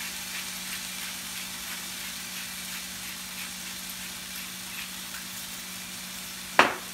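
Diced potatoes sizzling steadily in oil in a frying pan, with faint irregular ticks from a salt grinder being twisted over them. Near the end, one sharp knock as the grinder is set down on the tile counter.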